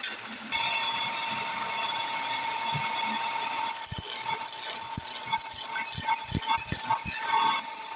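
Wood lathe running with a steady whine. From about halfway through come irregular clicks and knocks as a turning tool works the spinning wood.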